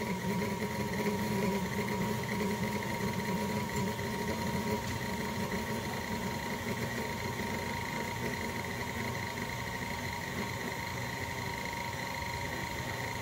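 KitchenAid Classic stand mixer running steadily, its motor and gearing humming at one constant pitch while the beater creams peanut butter cookie dough in a stainless steel bowl.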